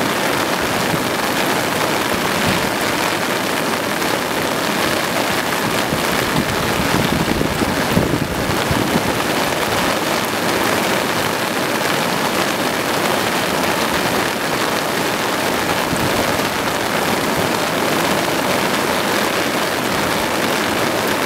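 Floodwater rushing and churning in a swollen river, mixed with falling rain: a steady, even noise throughout. A brief bump about eight seconds in.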